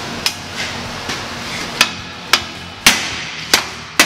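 Hammer striking a steel plate edge with sharp ringing metal-on-metal blows: one light tap, then five hard strikes about half a second apart from about two seconds in. The blows are knocking the plate over the lip of a steel tube.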